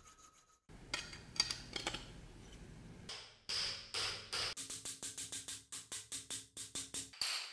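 Hand-hammer blows on a metal knife guard being driven down onto a blade tang held in a bench vise: a few knocks with some rubbing first, then a quick, even run of sharp metallic taps, about four a second, for the last few seconds.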